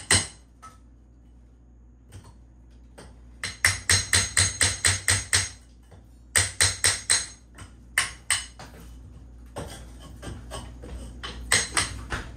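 Hammer driving a chisel into the old cement chinking between log courses, chopping it out. The blows come in quick runs of about four or five a second, with pauses between the runs; they are fainter and denser near the end.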